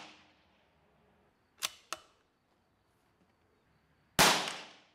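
A scoped .22 LR rifle firing CCI Copper ammunition: the ring of one shot fades at the start, two short sharp clicks come about a second and a half in, and a second sharp shot cracks near the end.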